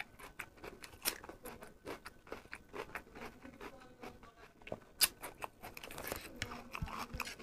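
Close-up eating sounds of a person chewing a mouthful of food with wet mouth clicks and lip smacks, a quick string of short sharp clicks, with a louder smack about a second in and another about five seconds in.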